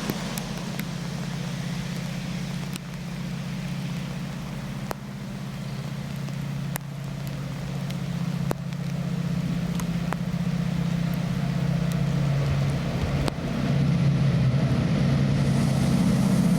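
Diesel train engine running, steadily growing louder as it draws nearer, with a few sharp clicks over it.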